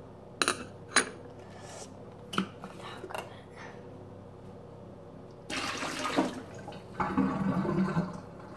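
A few light clicks as a metal straw is set down on the counter and the tumbler is handled, then liquid is poured from the tumbler into a kitchen sink and runs down the drain in two spells, starting about five and seven seconds in.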